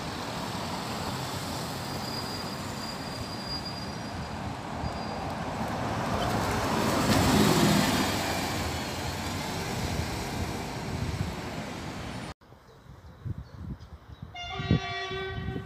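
Iveco Urbanway 12 city bus driving past close by and pulling away, its engine and tyres loudest about seven to eight seconds in. After a cut, a train horn sounds a long steady note near the end.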